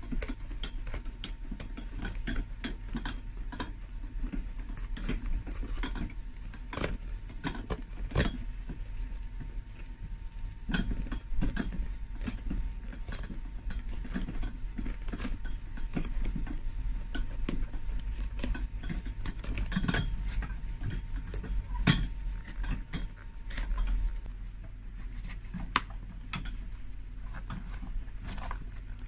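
A knife cutting the old stitching between a shoe's sole and midsole: a run of small irregular clicks, snaps and scrapes as the blade works along the sole edge and the sole is prised away, over a steady low hum.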